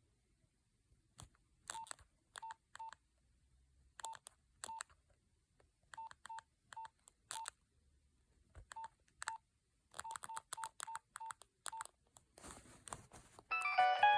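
Nokia 2112 mobile phone keypad: about seventeen short single-pitch key beeps, each with a soft click, pressed in irregular runs. A ringtone melody starts playing from the phone near the end.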